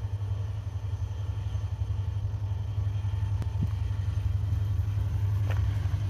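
Diesel-electric locomotive (a GT22) approaching from a distance: a steady low engine rumble that slowly grows louder.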